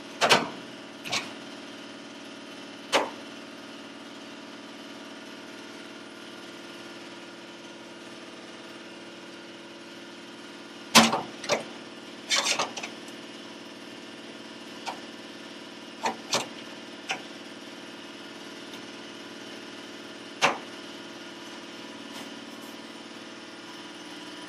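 A steady machine hum runs underneath about a dozen sharp clicks and clanks from tools and parts being handled on the sheet-metal body tub. They come singly and in small clusters, the loudest about 11 seconds in.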